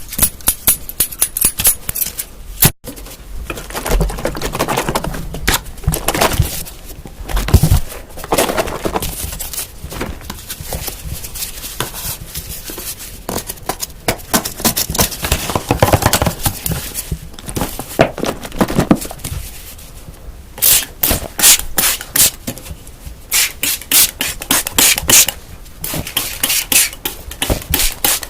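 Close-miked scratching, tapping and handling of small objects, with runs of fast clicking taps in the second half.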